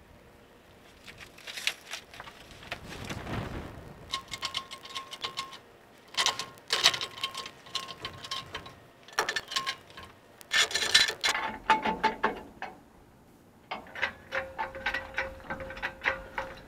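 Irregular metallic clicks, clinks and knocks of hand tools and a jack being worked on a pickup's leaf-spring hardware, with a few short ringing squeaks of metal.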